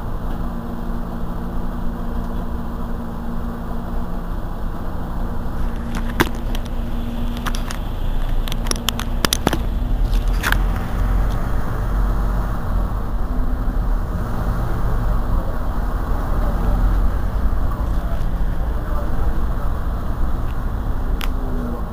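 Mercedes-Benz Citaro C2 city bus engine idling steadily while the bus stands still. A few sharp clicks come around the middle, and the low rumble grows louder about eight seconds in.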